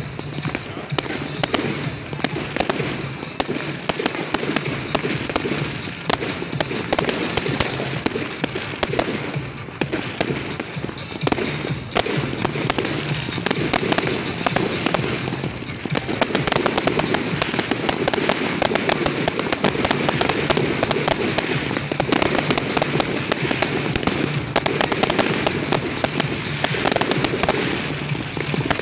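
Fireworks display: a dense, continuous stream of bangs and crackles from many aerial shells bursting. It grows denser and louder about halfway through.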